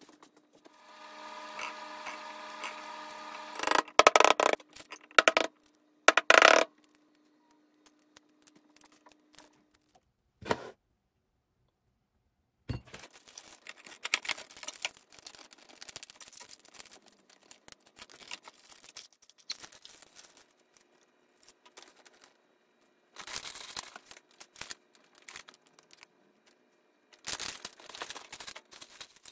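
Kitchen prep handling sounds: a steady tone near the start, sharp clinks and knocks a few seconds in, then a long run of small clicks and plastic rustling as boiled eggs are put into a plastic zip-top bag with sauce.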